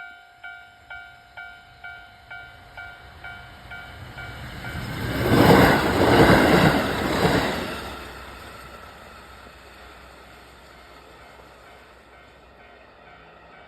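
Level-crossing alarm bell ringing about twice a second, fading out after about four seconds as a two-car diesel railcar train, a KiHa 54 and a KiHa 40, passes through the crossing. The train is loudest from about five to eight seconds in, swelling twice, then dies away.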